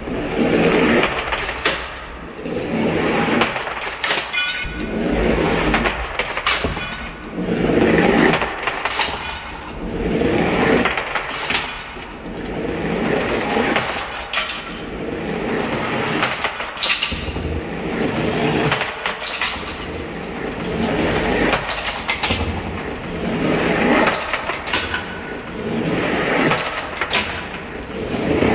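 Glass bottles breaking and crunching as a heavy ball rolls across brick paving into a stack of paint-filled bottles, with sharp cracks among repeated surges of rolling and crunching every couple of seconds.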